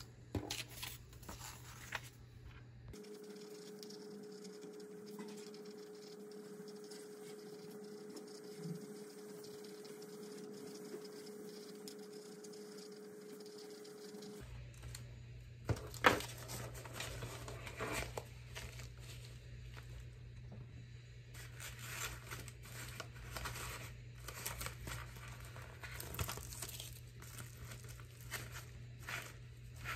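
Crinkling and rustling of plastic packaging and a padded bubble mailer being handled, with scattered light taps. A steady low hum runs for about ten seconds near the start, and a sharp knock comes about sixteen seconds in.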